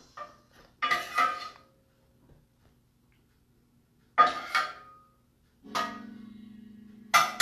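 A metal spoon clanking against a stainless steel pot in three short bursts, a few seconds apart, the last the loudest. A steady low hum comes in shortly before the last burst.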